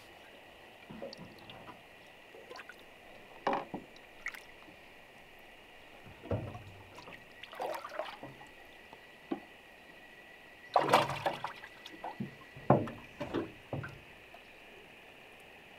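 Water sloshing and splashing in short, irregular bursts with a few knocks, loudest about eleven seconds in, as a freshly caught mangrove jack is handled at the boat.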